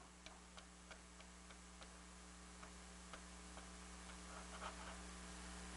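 Near silence: room tone with a steady low hum and faint short clicks, about three a second at first, then sparser.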